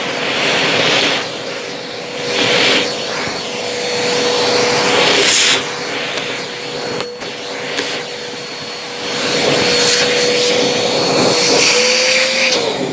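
Vacuum cleaner running with a steady motor whine under repeated surges of rushing suction noise. Right at the end the motor's pitch lifts slightly and then starts to wind down as it is switched off.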